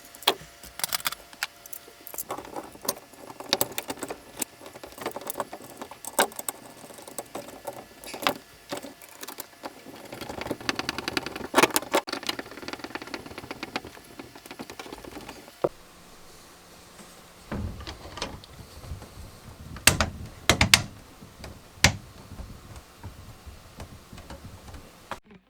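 Hand work on a wall electrical outlet and its wiring: scattered clicks, taps and light rattling, with a few sharper knocks and thuds near the end.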